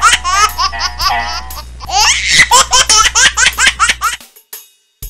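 Canned laughter sound effect: high-pitched laughing in quick bursts that cuts off abruptly about four seconds in. It is followed by faint, evenly spaced ticks of a beat starting.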